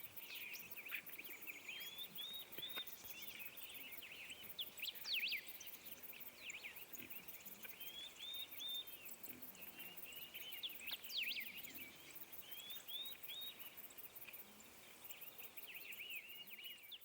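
Birds chirping and calling continuously, many short repeated chirps with a few louder sharp calls around five and eleven seconds in, over faint outdoor hiss.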